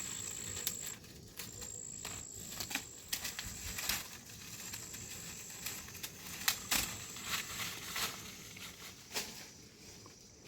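An insect trilling on one steady high pitch. The trill breaks off a few times and stops about six seconds in. Scattered irregular clicks and taps run under it.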